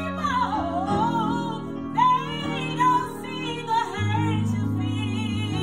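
Gospel music: a solo singer's melody, wavering with vibrato, over sustained instrumental chords and bass notes.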